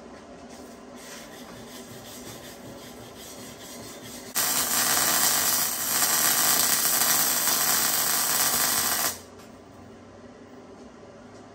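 Electric arc welding a stitch weld on a steel axle (diff) housing: a steady, loud sizzling hiss that starts about four seconds in, runs for almost five seconds with a brief dip near the middle, and cuts off sharply when the arc stops.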